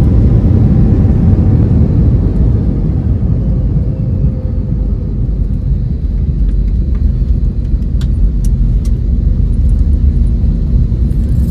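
Airliner cabin noise as the plane rolls along a wet runway after landing: a loud, steady low rumble of engines and wheels, with a faint whine falling in pitch over the first few seconds. A few light clicks come near the end.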